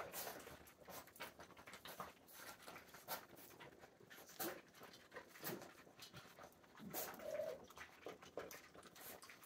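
A litter of Rhodesian Ridgeback puppies feeding from a shared steel pan, faint and busy with many short clicks and smacks of licking and eating. A few brief puppy vocal sounds come through, the clearest about seven seconds in.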